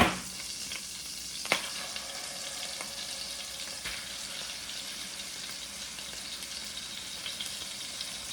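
Beef steaks sizzling steadily in a hot stainless steel frying pan, with a sharp knock right at the start and another about a second and a half in.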